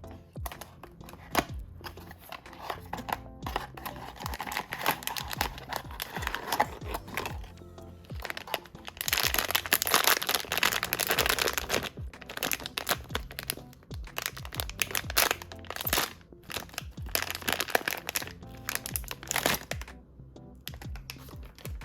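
Blind-box packaging being opened by hand: plastic wrapping crinkling and tearing, with sharp clicks and rustles. The crinkling is loudest in a long stretch about nine seconds in and again near the end, over steady background music.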